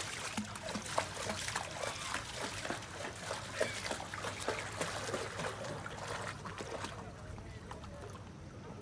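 A dog splashing about in shallow lake water, with many irregular splashes and trickling drips. The splashing eases off about seven seconds in.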